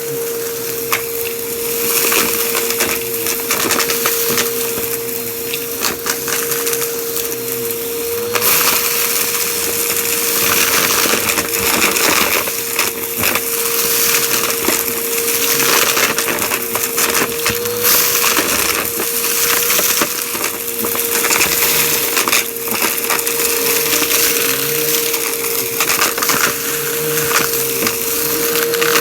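Vacuum cleaner running with a steady motor whine while it sucks up crunchy debris, which crackles and rattles through the nozzle and hose in dense, irregular clicks.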